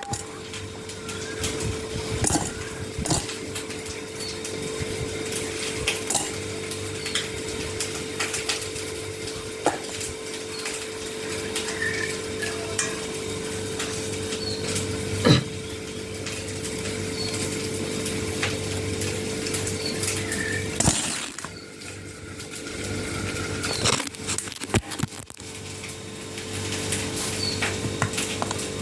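Kitchen utensils clinking and knocking against dishes during food preparation: scattered light clicks, with one sharper knock about halfway through, over a steady hum that stops for a few seconds near the end.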